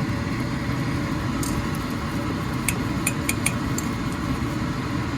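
Yogurt gravy boiling in a pan on a gas burner, a steady low rumble, with a few sharp clinks of a spoon against the pan around the middle.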